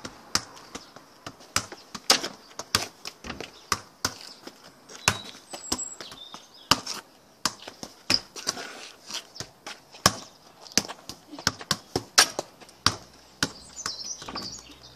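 Football being kicked and bouncing off a breeze-block wall and the ground: a run of sharp, irregular thuds, about two or three a second.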